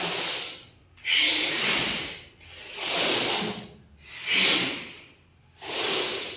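Bhastrika pranayama (bellows breath): forceful, loud breaths in and out through the nose in a steady rhythm, about five hissing strokes roughly a second and a half apart.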